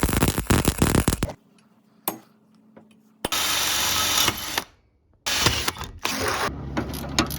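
MIG welder arc crackling in three separate bursts of welding with short pauses between: the first stops about a second in, the second runs for just over a second in the middle, and the third starts past the five-second mark and tails off into quieter clatter.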